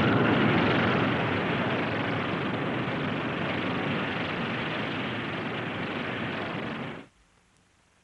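Honest John rocket's solid-fuel booster motor at launch: a steady rushing roar of rocket exhaust that slowly fades as the rocket climbs away, then cuts off abruptly about seven seconds in.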